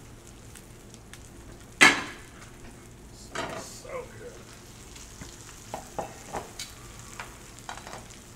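Stainless cookware clattering: one sharp metal clank about two seconds in, then lighter clinks and scrapes of a metal spatula in a frying pan, over a faint sizzle of food frying.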